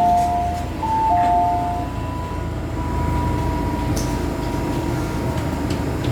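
Inside an MTR M-train carriage: a two-note electronic chime sounds twice in the first two seconds, then the train's steady rumble carries on with a faint high whine.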